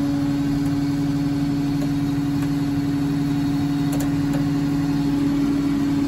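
1999 New Holland 675E backhoe loader's diesel engine idling steadily and loudly, heard from inside the cab, with a faint click about four seconds in.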